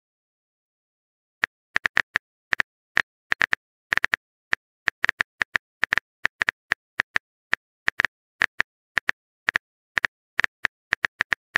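Phone keyboard typing sound effect: a run of quick, irregular clicks, about four a second, starting about a second and a half in.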